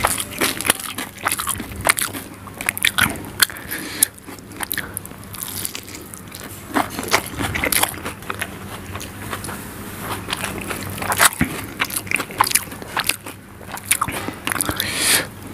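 Close-miked chewing of soft egg omelette soaked in gravy: wet mouth smacks and many irregular sharp clicks, with no pause.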